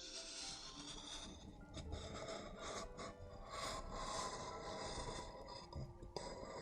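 Close-up scratching and rubbing right against a microphone, an ASMR trigger sound going on steadily with a brief break near the end.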